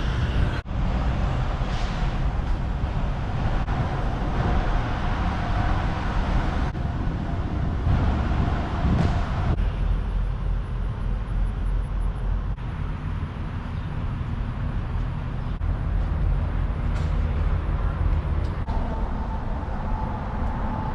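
Steady road noise of a car driving: an even low rumble of engine and tyres, with a brief dropout about half a second in.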